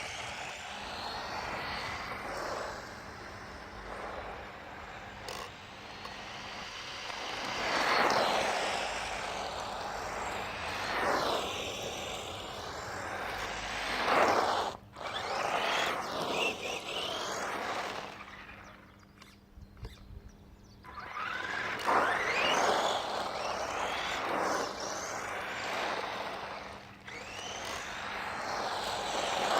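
Tamiya radio-controlled buggy driving around, its motor whine gliding up and down in pitch as it speeds up, slows and passes close by several times. It goes quieter for a couple of seconds about two-thirds of the way through.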